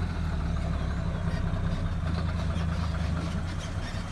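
Truck's diesel engine running steadily at an even, low note, close to the microphone.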